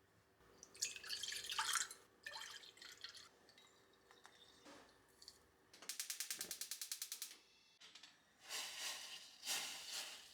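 Kitchen work noises: a few short bursts of splashing, scraping handling, and in the middle a rapid, even clicking rattle lasting about a second and a half.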